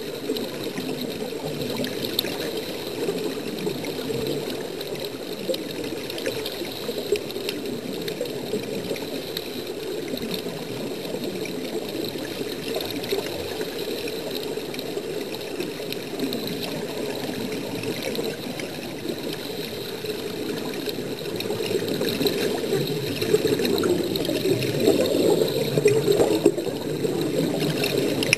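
Steady bubbling and rushing water heard underwater, from air streaming out of a surface-fed diving helmet. It grows louder about three-quarters of the way through.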